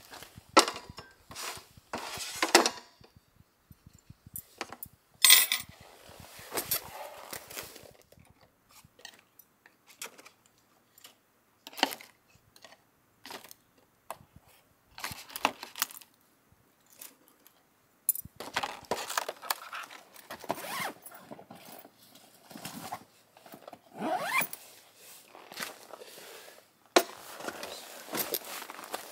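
Close handling sounds of setting out a meal: plastic food packaging crinkling, and light clicks, clatters and scrapes of food and utensils put down on a wooden camp table. They come in short bursts with quiet gaps between.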